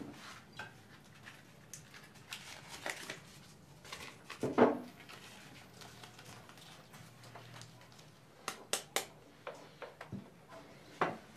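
Small objects being handled at a table in a quiet room: light rustling and scattered clicks. There is a louder short knock about four and a half seconds in, and three sharp clicks close together near the end.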